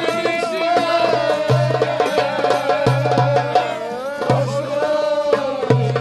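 Live Turkish fasıl music: a clarinet plays a bending, ornamented melody over darbuka drum strokes. A deep beat falls roughly every second and a half.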